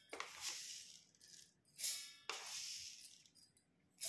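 Spoonfuls of mustard seeds poured into an empty stainless steel mixer-grinder jar, each pour a hissing rattle of seeds on the steel lasting about a second: two pours, and a third starting at the very end.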